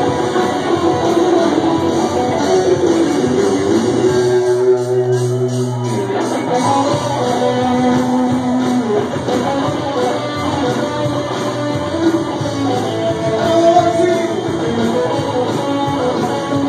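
Loud music with guitar and a singing voice, playing without a break.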